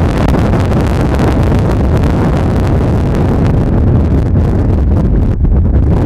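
Storm wind buffeting the microphone: a loud, steady rush with a heavy low rumble.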